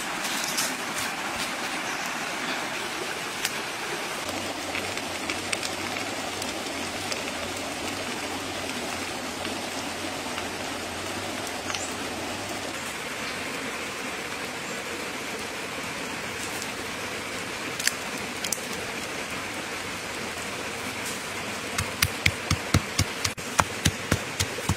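A steady rushing hiss with scattered sharp crackles. Near the end a pestle starts pounding garlic, chilies and salt in a stone mortar, about three dull knocks a second.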